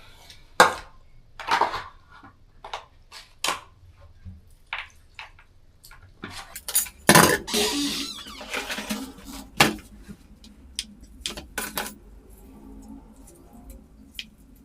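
Cutlery clinking and knocking against dishes in a string of short, sharp taps, with a louder stretch of scraping and rattling about halfway through.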